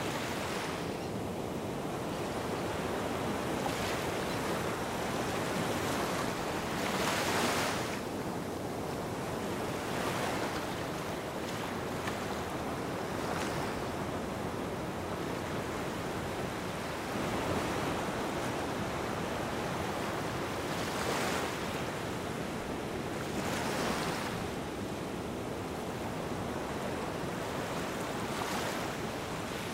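Small waves washing onto a sandy beach, a swell of surf every three to four seconds over a steady wash of water noise.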